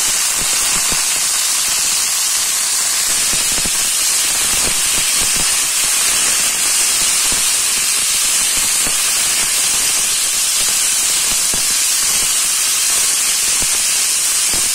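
Cut long beans sizzling steadily in hot oil in a nonstick wok as they are stir-fried with garlic and onion. Light, scattered taps of a wooden spatula against the pan come through the hiss.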